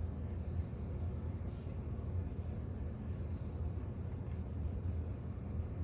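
Steady low rumble of distant city traffic and vehicle engines, with a faint brief click about a second and a half in.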